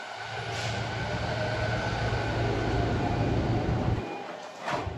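Train noise heard inside a JR East E231-500 commuter car standing at a platform, as its sliding doors close and a train moves on the adjacent track. There is a steady low hum with a few thin steady tones, the hum drops out about four seconds in, and a short sharp sound comes near the end.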